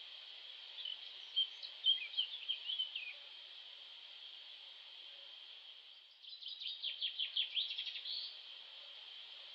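Birdsong over a steady high-pitched insect chorus. A bird sings quick chirping phrases about a second in and again from about six to eight seconds.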